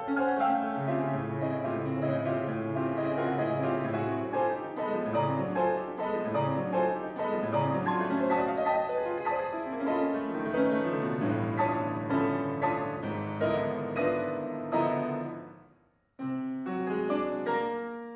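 Grand piano played solo: a dense stream of notes over a moving bass that dies away about fifteen seconds in. After a brief silence, new chords start near the end.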